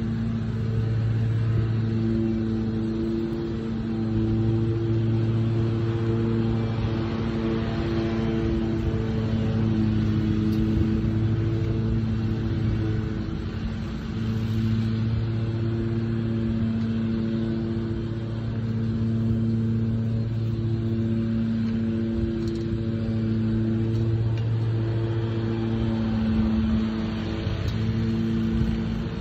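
A motor vehicle engine idling steadily, its low hum swelling and fading every few seconds, with wind rumbling on the microphone.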